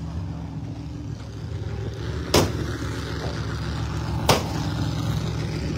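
Two sharp hammer strikes on metal, about two seconds apart, over a steady low engine hum.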